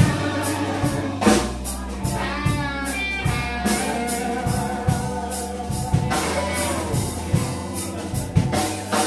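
Live blues band playing a slow 12-bar blues between sung lines. Electric guitar fills with bent notes ring over a steady drum kit beat and bass.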